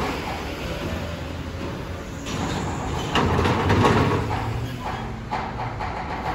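Vehicles driving off a ferry onto a steel loading ramp: a low, steady engine drone, swelling as a car passes close about three to four seconds in, with a few clanks of tyres on the ramp's metal plates.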